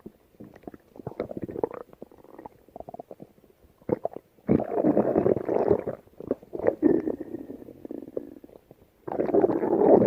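Human stomach growling and gurgling: loud rumbles about four and a half seconds in and again near the end, with smaller gurgles and pops between them.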